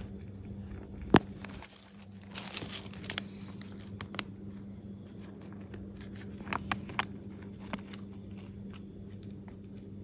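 Crinkling and rustling, with scattered small clicks and one sharp knock about a second in, over a steady low hum.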